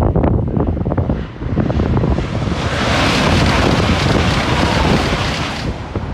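High-speed train passing at speed: a rush of air and rail noise that builds about two seconds in and drops away near the end, with wind buffeting the microphone.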